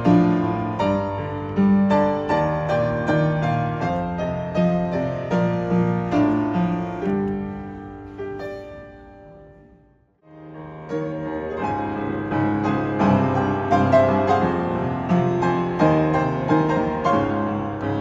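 Yamaha upright piano played solo, a pop ballad arrangement with a steady left-hand accompaniment. The playing fades out to silence about ten seconds in, and a different piece begins half a second later.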